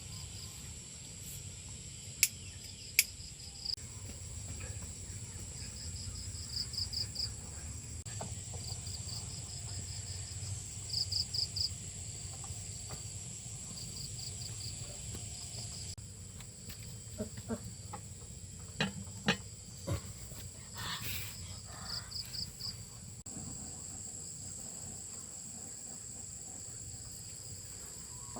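Insects chirping in short pulsed groups over a steady high insect drone, with a few scattered sharp clicks and knocks.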